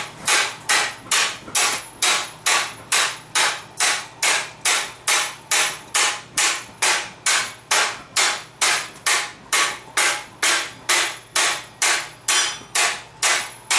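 Hand hammer striking a forge-heated 3/4-inch square steel bar to bend it around a scroll jig on a steel table: steady, even blows at about two and a half a second.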